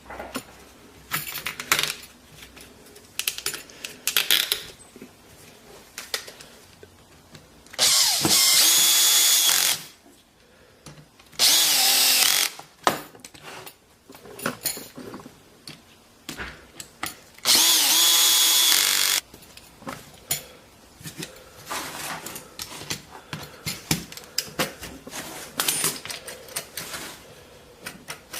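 Power drill running in three short bursts of about two seconds each, fitting bolts and T-nuts into a Baltic birch plywood base, with clicks and knocks from handling the wood and hardware in between.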